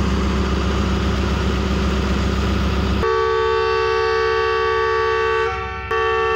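ZCU-30 diesel-electric locomotive's engine running loud and steady close by. After a sudden cut about three seconds in, the locomotive's horn sounds a long chord of several tones, broken briefly near the end: the signal for the train's departure.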